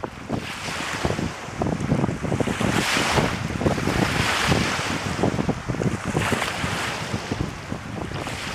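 Gusty wind buffeting the microphone over the wash of small waves breaking against a rocky lakeshore; the rush of wind swells and fades with the gusts, loudest about three to five seconds in.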